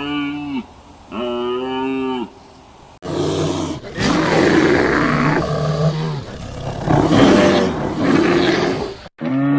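Two short, pitched animal calls, then, after an abrupt cut, about six seconds of rough, low roaring calls from a large animal, rising and falling in several surges.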